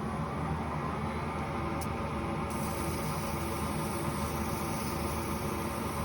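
Lathe motor running steadily, spinning a bicycle hub bearing cone while used 500-grit sandpaper is held against its freshly reground bearing surface to polish out the grinding scratches.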